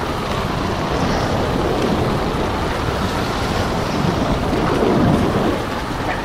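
Storm sound effect: a steady wash of rain and rough sea, with a low rumble of thunder swelling about five seconds in.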